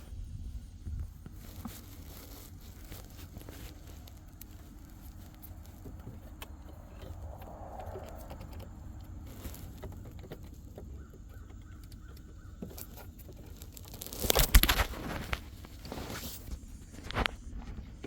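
Plastic clicks and knocks from handling the new headlight switch and its wiring connector, with a cluster of loud sharp knocks about 14 seconds in and a smaller one near the end, over a steady low rumble.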